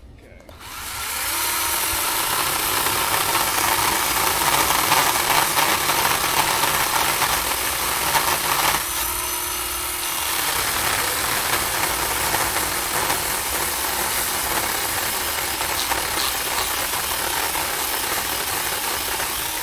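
Small electric chainsaw cutting into a fairly tough tree, the saw starting about half a second in and running under load. About nine seconds in the cutting noise briefly eases and a steady motor whine shows through, then it bites in again until it stops at the end.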